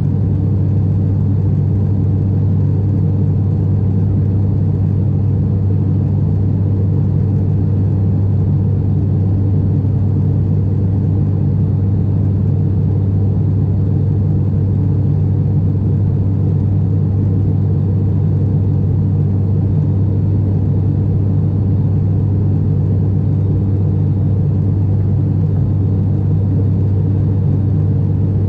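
ATR 72-600 turboprop engines and six-bladed propellers running steadily in flight, heard inside the cabin beside the engine: a loud, even drone with a strong deep hum and a stack of lower tones above it.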